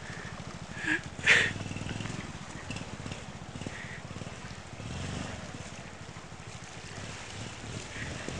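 Single-cylinder motorbike engine running steadily at low revs, with a couple of short sharp sounds about a second in and a slight rise in engine sound around the middle.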